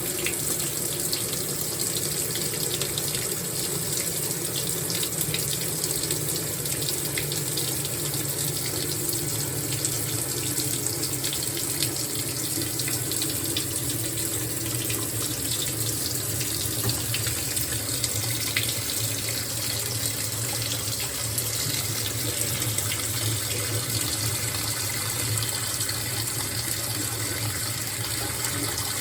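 Water running steadily into the tub of a GE top-load washing machine during the fill stage of its cycle.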